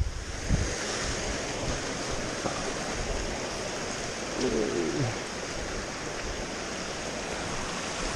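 Small rocky mountain stream running over stones: a steady hiss of rushing water. About halfway through, a short wavering pitched sound rises above it.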